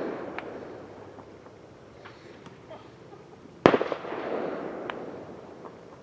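Fireworks going off: one loud, sharp bang about three and a half seconds in, followed by a rolling echo that dies away over a second or so. A few fainter pops are scattered around it, and the echo of an earlier bang fades at the start.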